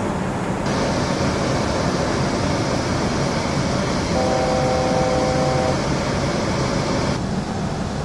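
Steady flight-deck noise of an Airbus A400M in flight, from its four turboprop engines and airflow. It turns brighter and more hissy just under a second in and falls back near the end. About four seconds in, a steady electronic tone sounds for about a second and a half.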